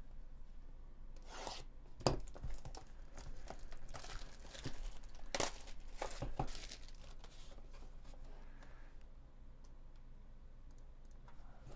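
Plastic shrink wrap being torn and crinkled off a trading-card hobby box: a series of crackling rips, the sharpest about two seconds in, then quieter handling of the box over the last few seconds.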